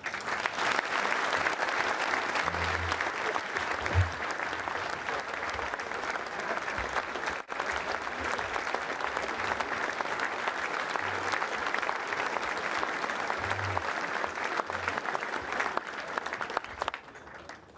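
Large audience applauding, a standing ovation of sustained dense clapping that dies away near the end.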